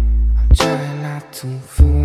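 Background music: a song with deep sustained bass notes and sharp hits about half a second in and near the end.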